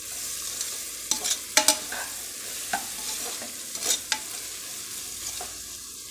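Metal spoon stirring sautéed carrots, beans and peas in a metal pressure cooker pot, with a steady sizzle from the hot oil and several sharp clinks and scrapes of the spoon against the pot, the loudest a pair about a second and a half in.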